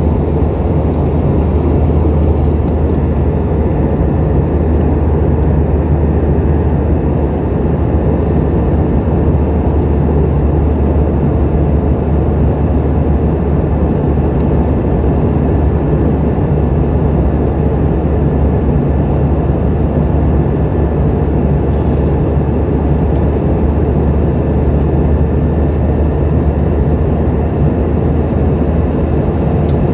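Steady drone of a Boeing 717-200's rear-mounted Rolls-Royce BR715 turbofans and rushing air, heard from inside the cabin in flight: a deep, unchanging hum under a loud rush.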